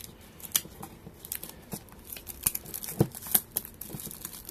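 Plastic shrink-wrap being picked at and peeled off a cardboard card-game deck box by hand, with irregular crinkles and crackles and one louder crackle about three seconds in.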